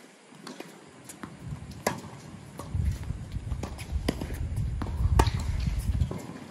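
Tennis ball being struck by rackets and bouncing on a hardcourt during a rally: a series of sharp pops a second or more apart, the loudest two about three seconds apart, over a low rumble that builds in the middle.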